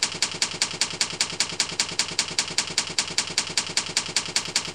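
Typewriter-style typing sound effect: rapid, even key clicks, about six a second, accompanying on-screen text being typed out letter by letter.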